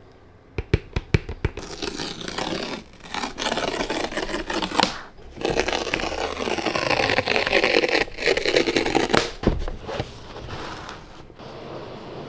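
Cardboard and paper packaging being handled and opened: a run of sharp clicks early on, then long stretches of scraping and rustling, with a low thump about nine and a half seconds in.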